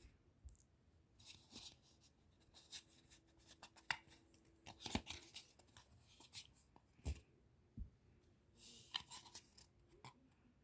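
Faint, scattered clicks, taps and rustles of a toy Nerf blaster being handled, with a few low thumps about five and seven seconds in.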